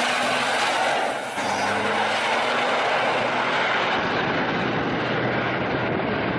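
A semi truck and a pickup truck running hard in a drag race: a loud, steady engine noise with a brief dip about a second in.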